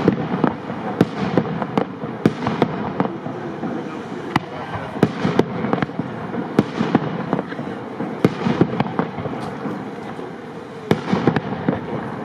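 Aerial fireworks display: shells of up to 75 mm bursting in quick succession, a rapid series of sharp bangs over a dense continuous noise.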